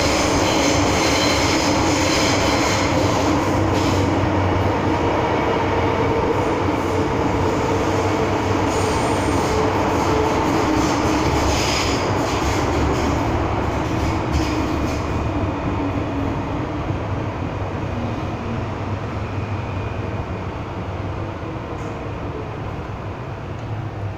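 MTR M-Train electric multiple unit heard from inside the car, running through a tunnel: a steady rumble of wheels on rail and running gear, with a thin high squeal during the first four seconds. The noise grows gradually quieter over the last ten seconds as the train slows.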